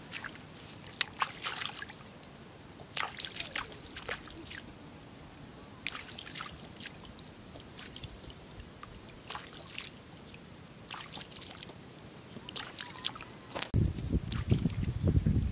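Small, scattered splashes and squelches of hands digging in the wet mud and shallow water of a flooded rice paddy. A louder, low rumble sets in near the end.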